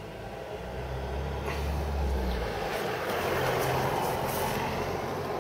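A passing motor vehicle: a low rumble and road noise that swell to a peak near the end and then begin to fade.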